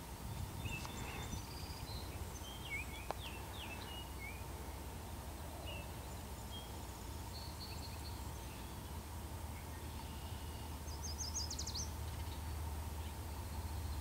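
Songbirds chirping, with scattered short calls and a rapid trill about eleven seconds in, over a low rumble from a distant approaching diesel freight train that grows a little louder near the end.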